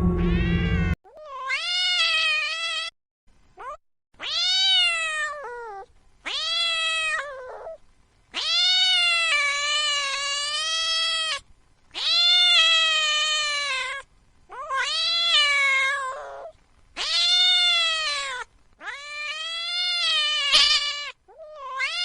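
Angry cat yowling: a series of about nine long, drawn-out wails, each rising and then falling in pitch, with short pauses between them. A different, lower sound fills the first second and cuts off abruptly.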